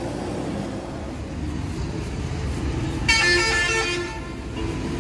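A steady low rumble of road traffic, with a vehicle horn sounding once for about a second, about three seconds in.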